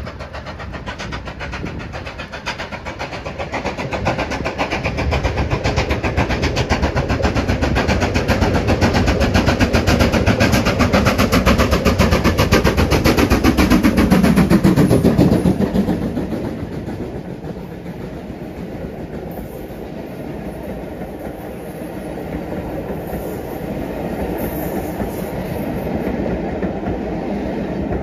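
BR Standard Class 5 steam locomotive No. 73082 running past with a passenger train. It grows louder as it approaches, and its sound drops in pitch as it passes about halfway through. The quieter rumble and clickety-clack of the coaches' wheels over the rail joints follows.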